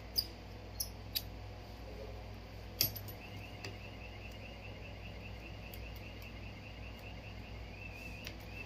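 A few sharp, light clicks of small tools and parts against a phone's mid-frame during reassembly, four in the first three seconds, over a steady low hum. From about three seconds in, a faint, fast, even high chirping runs on underneath.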